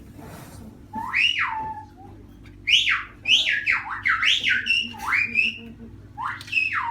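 Silbo Gomero whistled speech: a person whistling a message in sharply rising and falling glides, several phrases in a row starting about a second in.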